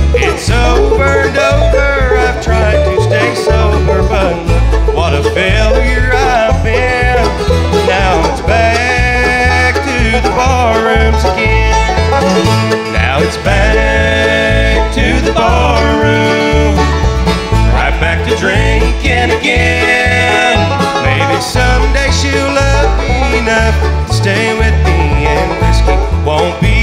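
Live bluegrass band playing an instrumental break without vocals: banjo, mandolin and flat-top acoustic guitars picking quick runs, over a pulsing bass line.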